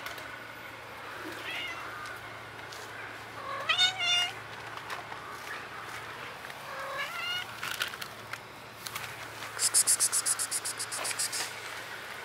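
Domestic cats meowing: a faint short meow about two seconds in, a loud drawn-out meow about four seconds in, and another meow a few seconds later. Near the end comes a fast high-pitched rattle of about seven ticks a second that lasts about two seconds.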